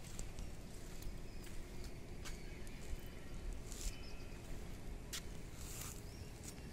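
Open-air ambience: a fluttering low rumble of wind on the microphone, with a few short, sharp clicks scattered through it.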